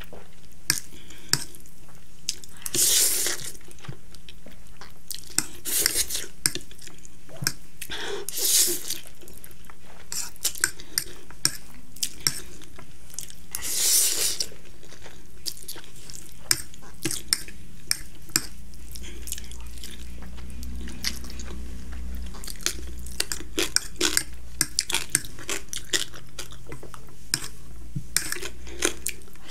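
Spicy instant noodles being slurped off a fork in loud, hissy sucks every few seconds, with chewing between them. A metal fork clicks and scrapes against the plate throughout.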